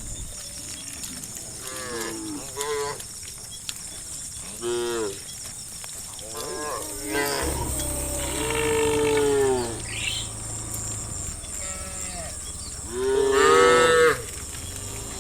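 Herd of cattle mooing: a string of separate calls from several cows, one long drawn-out moo in the middle and the loudest call near the end.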